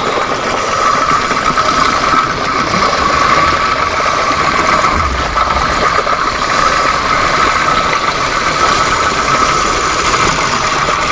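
Underwater sound recorded beside lava flowing into the sea: a dense, steady rattling noise with a constant hum-like tone running through it.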